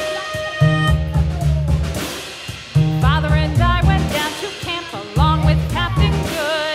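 Background music with a repeating bass line and drums; a wavering lead melody, sung or played, comes in about three seconds in.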